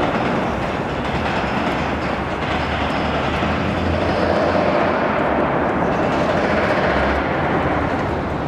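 Mini-excavator's hydraulic breaker hammering steadily, a dense mechanical rattle over the machine's engine.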